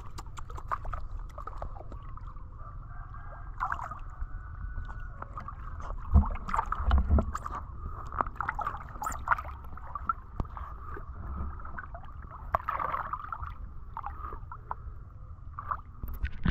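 Lake water sloshing and splashing against a half-submerged camera, with many small splashes and drips over a low rumble. The splashes are louder about six to seven seconds in.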